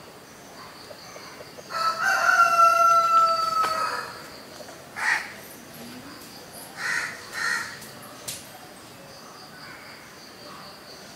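A rooster crows once, its long last note held for about two seconds. A few short caws from a crow follow.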